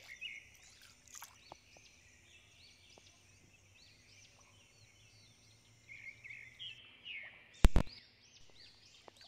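Birds chirping in many short, arched calls, busier about six seconds in. Near the end there is a single sharp click, the loudest sound.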